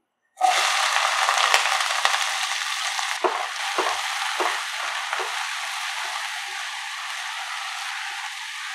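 Chopped onions hitting hot oil with cumin seeds in a nonstick pan, setting off a loud sizzle about half a second in that slowly dies down. A spatula stirs through the onions several times around the middle.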